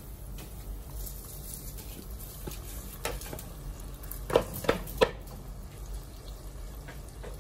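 Washed rice tipped and scraped with a wooden spoon from a bowl into a pot of simmering chicken broth, over a steady bubbling hiss. About halfway through come three sharp knocks in quick succession, the loudest sounds, as the spoon strikes the bowl to knock the rice off.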